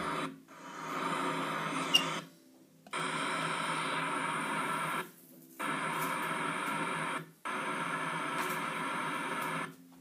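Opening of a song played on an iPhone: a steady radio-like static hiss that cuts in and out abruptly every second or two, with a short blip about two seconds in.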